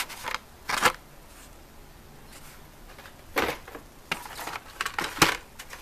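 Carded Hot Wheels packages, cardboard backs with plastic blisters, rustling and clacking in a plastic tub as a hand flips through them: a few short scrapes and knocks, with a cluster of them near the end.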